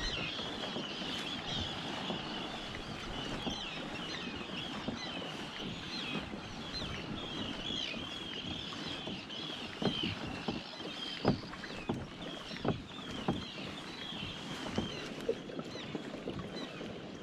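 Water lapping and gurgling along the hull of a Hobie Tandem Island sailing kayak moving over calm sea, with a few sharp knocks in the second half. Many short high chirping calls of birds carry on throughout.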